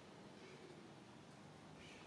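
Near silence: only faint background noise.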